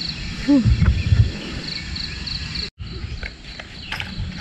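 Crickets chirping in a steady repeating pattern, about three high chirps a second, over a low rumbling noise. Between about half a second and a second and a half in come a short falling tone and a few loud low thumps, and the sound drops out for an instant near the middle.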